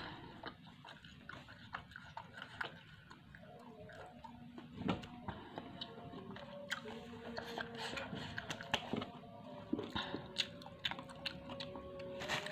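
Close-up chewing and biting of Indonesian fried snacks (cimol and basreng): a run of irregular short clicks and crunches, with louder bites about five seconds in and through the last few seconds.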